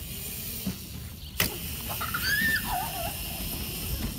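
Small electric kids' dirt bike running across a lawn, a steady motor noise under outdoor rumble, with a sharp click about a second and a half in and a brief cry that rises and then falls and wavers about two seconds in.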